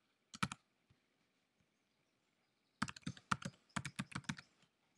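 Typing on a computer keyboard: a couple of keystrokes about half a second in, then a quick run of keystrokes from about three seconds in until shortly before the end.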